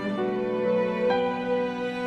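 Background music of slow, held notes, the chord changing about once a second.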